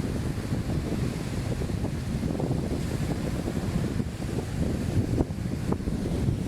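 Ocean waves washing on the shore, with wind rumbling steadily on the microphone.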